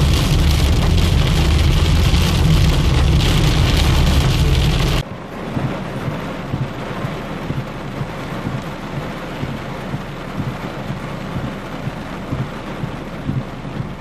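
Heavy rain pelting the car, loud and dense with a low rumble underneath. About five seconds in it cuts abruptly to a quieter, steady hiss of heavy rain splashing on a flooded road.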